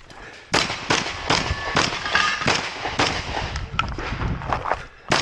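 Shotgun shots fired in quick, uneven succession.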